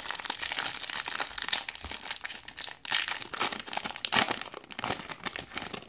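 A Topps Platinum trading card pack's foil wrapper being torn open and peeled back by hand: continuous crinkling and crackling of the wrapper, stopping just before the end.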